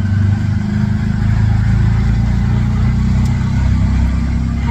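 Bajaj auto-rickshaw engine running with a steady low rumble.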